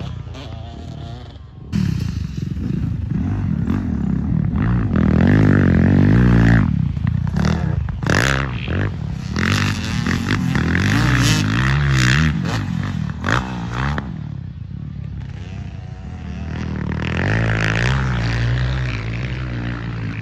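Two motocross dirt bikes riding past, their engines revving up and down so the pitch rises and falls again and again. The sound swells loudest several times as the bikes come nearer.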